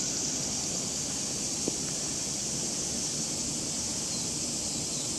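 Steady outdoor background noise: a constant high-pitched hiss over a low rumble, with one small click about a second and a half in.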